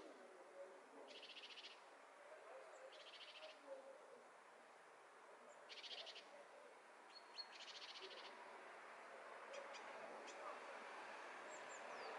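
A small songbird singing four short, fast, high trills about two seconds apart, with a few faint thin chirps near the end, over a quiet outdoor background hush.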